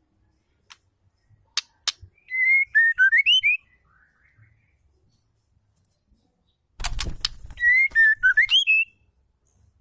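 White-rumped shama, given as a female, calling. Two sharp clicks, then a short whistled phrase of rising and falling notes. After a burst of clicks with a low rustling flutter, the same phrase comes again about five seconds later.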